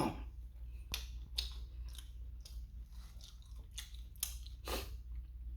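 A person chewing crunchy food close to the microphone, with a string of short, sharp crunches and clicks.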